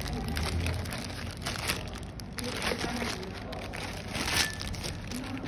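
Plastic courier mailer bag crinkling and rustling as it is handled and turned over, in irregular crackles, the sharpest about four seconds in.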